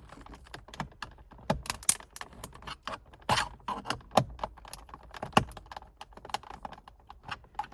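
Irregular plastic clicks and knocks as the clipped-on plastic steering column cover behind the steering wheel is handled and worked loose.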